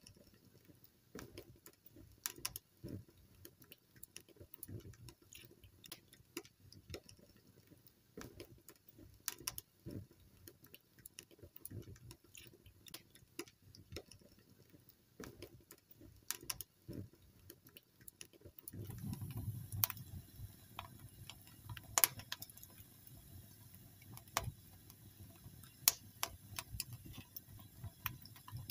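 Wood fire crackling: irregular sharp pops and snaps from the burning wood. About two-thirds of the way through, a low steady rumble sets in under the crackle, and the loudest pops follow.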